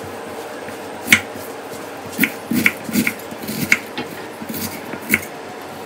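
Kitchen knife cutting onion on a chopping board: about six separate knocks of the blade hitting the board, spaced irregularly, one or two seconds apart.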